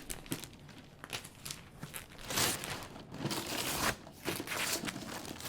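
A box being opened and unwrapped by hand: paper crumpling and tearing in a series of irregular rustles, the loudest about halfway through.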